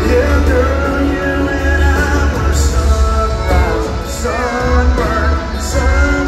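Live country band playing loudly with heavy bass, with singing over it, heard in a large arena.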